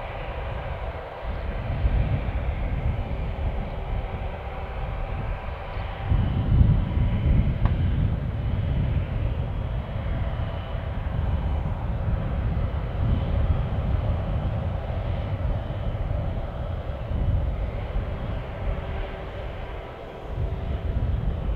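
Airliner jet engines running at taxi idle as an ANA jet passes, a steady whine over an uneven low rumble. The rumble grows louder about six seconds in and dips briefly near the end.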